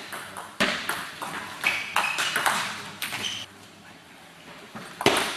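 Table tennis ball clicking sharply off the bats and the table during a rally, echoing in the hall. A loud strike comes about half a second in and several more follow over the next few seconds. After a pause of about a second and a half, another sharp hit comes near the end.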